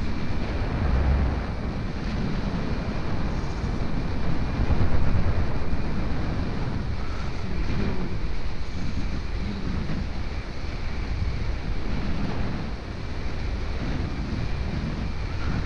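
Airflow of a paraglider in flight buffeting the camera's microphone: a steady rushing wind noise that swells and eases in gusts, strongest about five seconds in.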